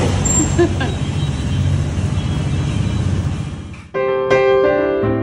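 Motor scooter engine running steadily, fading out. About four seconds in, piano music starts with clear struck notes.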